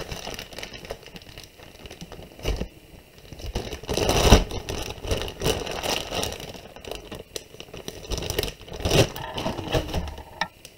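Plastic zip-top bag crinkling and rustling as it is handled, mixed with irregular scrapes and clicks of a lump of clay being pulled out onto a wooden board. The loudest rustle comes about four seconds in.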